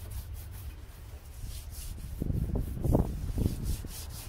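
Hand brush scrubbing the car's rear suspension arm, in quick back-and-forth strokes at about four to five a second. A few dull knocks come around the middle and are the loudest part.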